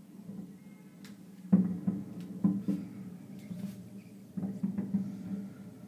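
Fireworks bursting some distance away: a volley of sharp booms and bangs about a second and a half in, then a second volley near the end, over a steady low hum.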